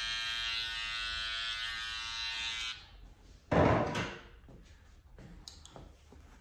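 Small electric detailing clipper buzzing steadily, switched off a little under three seconds in. About a second later comes a single short, loud knock, the loudest sound here.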